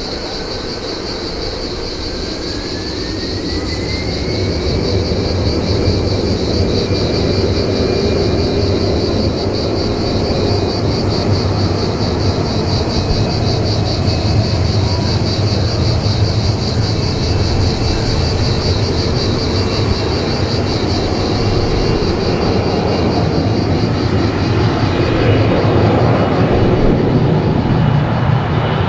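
Embraer E190 jet's GE CF34 turbofans spooling up: a whine rises in pitch over the first few seconds, then holds as a steady high whine over a heavy engine rumble that keeps growing louder.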